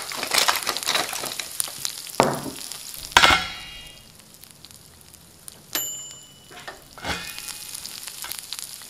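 Food sizzling and crackling as it grills over hot coals, with a few louder sharp cracks, the loudest about three seconds in.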